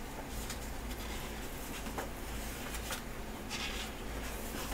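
Photobook pages being handled and turned by hand: a few soft paper rustles, the longest about three and a half seconds in, over a steady background hiss.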